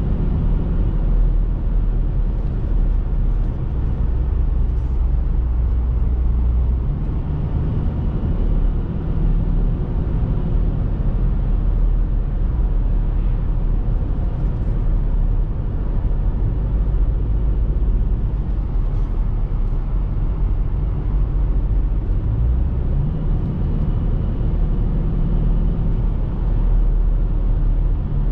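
BMW X3 F25 2.0d's four-cylinder diesel engine and tyre and road noise, heard inside the cabin while cruising: a steady low drone, with the engine hum coming up and dropping back a few times.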